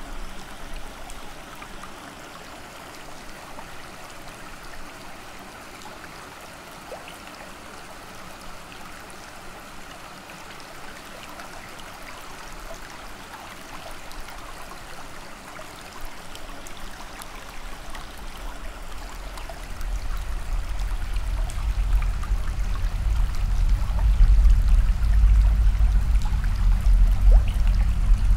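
Water running and trickling steadily in a flood tunnel. About two-thirds of the way in, a deep low rumble swells up and becomes the loudest sound.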